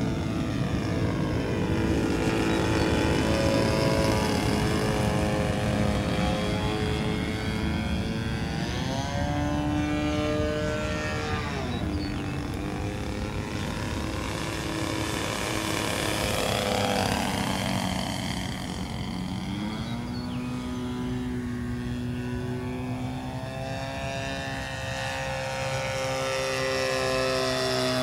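Single-cylinder two-stroke DLE20 gasoline engine of a 1/4-scale RC Yak 54 in flight, running continuously with its pitch swooping down and back up several times as the plane manoeuvres and passes.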